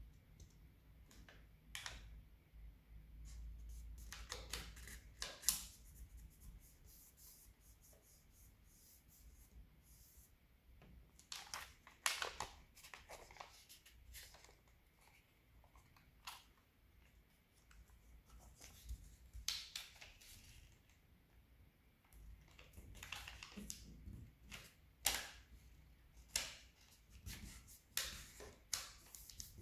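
A sheet of origami paper being handled, folded and creased by hand: faint crinkles, rustles and rubs of paper, coming in scattered spells with quiet stretches between.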